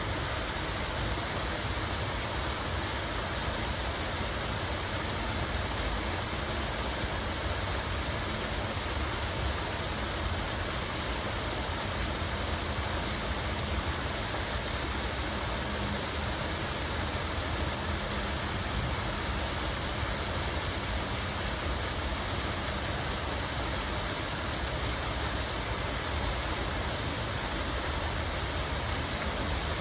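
Flowing water rushing steadily and evenly, a constant splashing hiss with a low rumble beneath it.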